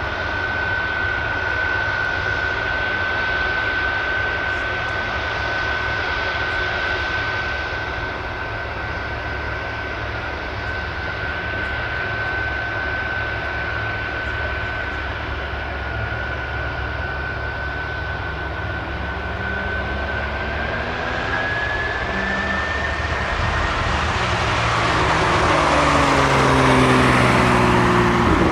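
Boeing 747 freighter's jet engines running with a steady high whine over a broad roar. From about two-thirds of the way in, the whine and a deeper engine tone climb in pitch and grow louder as the engines spool up.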